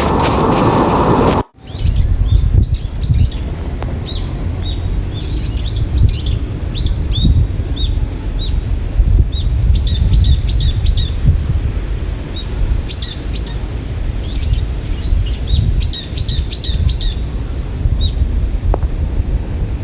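Small birds chirping: many short, rising chirps, often in quick runs of three or four, over a low rumble of wind on the microphone. A loud rushing noise plays at the start and cuts off suddenly about a second and a half in.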